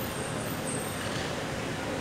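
Steady background hubbub at a train station entrance: an even hum of traffic with faint voices mixed in.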